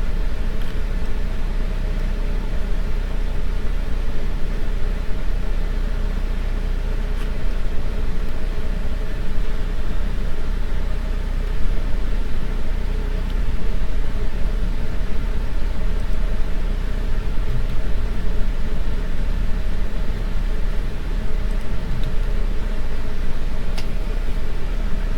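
Steady low hum with a hiss over it, unchanging throughout, and a few faint clicks.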